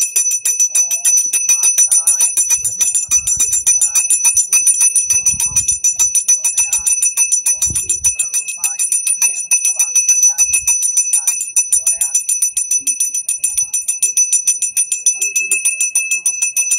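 Puja hand bell rung rapidly and without pause, its high ringing tone held steady under the quick strikes, accompanying an aarti lamp offering.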